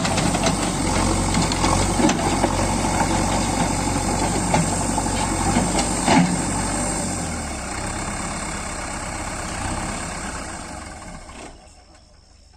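JCB 3DX backhoe loader's diesel engine running, with scattered sharp knocks and clanks, fading away near the end.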